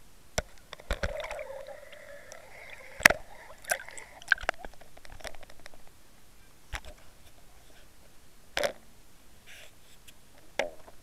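Knocks and clicks of a fishing fish-cam being jostled as it is hauled out of the water and handled. A held tone runs for about three seconds from about a second in.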